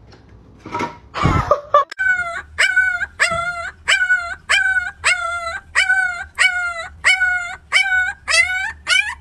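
Puppy yipping in a rapid string of short, high calls, about two a second, starting about two seconds in.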